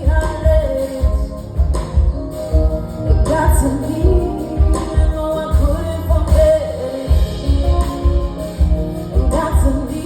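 A song with a lead vocal over a band, driven by a steady, pulsing bass beat.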